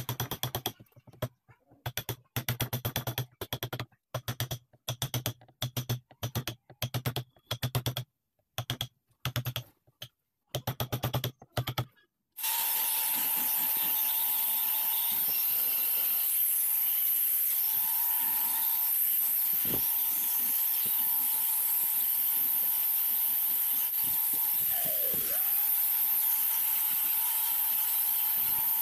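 A wood chisel struck with a mallet, cutting into a pine crossbow stock in quick bursts of sharp taps. Then, about twelve seconds in, an angle grinder with a small sanding drum starts sanding the stock with a steady high whine and hiss, its pitch dipping once a few seconds before the end as the drum bites into the wood.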